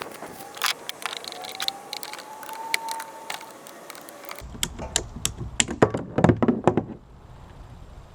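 PVC pipe and fittings being handled and fitted together: a run of light clicks and taps, then from about four seconds in a burst of louder knocks that stops about seven seconds in.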